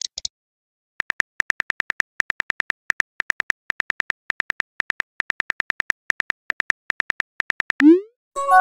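Simulated phone keyboard clicks from a texting-story animation, ticking about seven times a second as a message is typed out. Near the end comes a short rising swoosh, the sound of a message being sent, and a held musical chord begins just after it.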